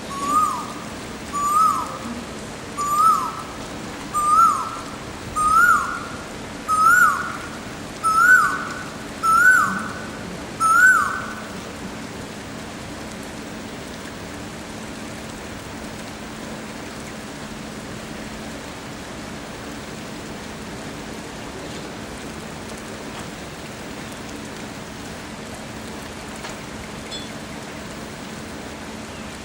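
Male Asian koel giving its "ko-el" call: a series of nine whistled, sharply up-slurred notes, about one every 1.3 seconds, each a little higher and louder than the last, stopping about eleven seconds in. A steady hiss runs underneath.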